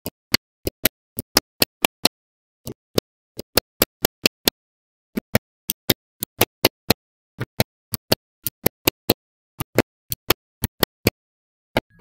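Magnetic balls clicking as they snap onto one another, one sharp click at a time, two to four a second with short pauses.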